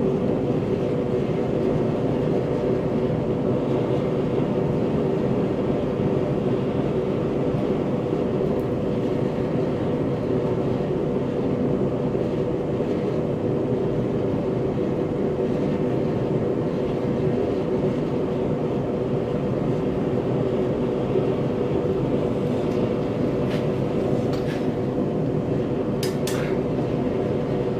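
Backyard metal-melting foundry furnace running: a steady roar with a low two-note hum that does not change. A few faint metallic clicks come near the end.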